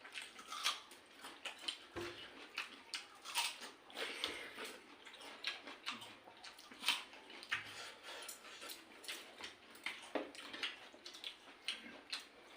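Eating sounds: irregular wet smacks, clicks and squelches of people eating pakhala, rice soaked in water, by hand.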